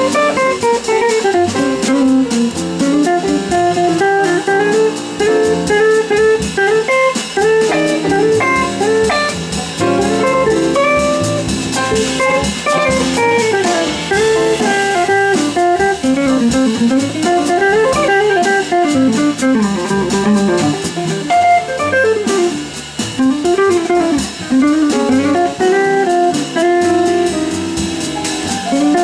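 A small live jazz band, with guitar, piano, double bass and drums, playing a Latin-style jazz tune. Guitar stands out against the rhythm section.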